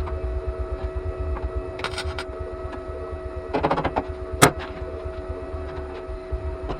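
Steady electrical hum with a low throb. Short bursts of crackling come about two seconds and three and a half seconds in, and one sharp loud click comes about four and a half seconds in.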